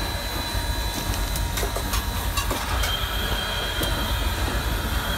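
Southern Railway 630, a 2-8-0 steam locomotive, rolling at low speed along the track. Under a steady low rumble come scattered clanks and clicks from the running gear and rails, and a thin steady high whine sets in about three seconds in.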